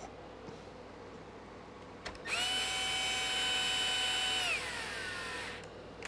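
Cordless drill-driver driving a screw into an RC car's chassis: a steady high motor whine for about two seconds, then the pitch drops as the motor slows and stops.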